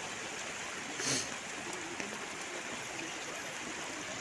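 Muddy floodwater flowing fast in a steady, even rush, with a brief louder surge about a second in.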